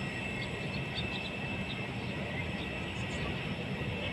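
Jet aircraft running on the ground: a steady low rumble under a constant high whine.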